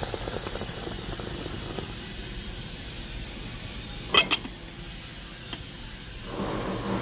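Steady low rumble of distant engine noise, with two quick sharp clicks about four seconds in as a small drinking glass is handled.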